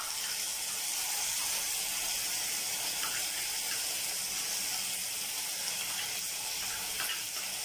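Diced onion, with ginger, garlic and green chilli paste, sizzling steadily in hot oil in a frying pan over a high flame.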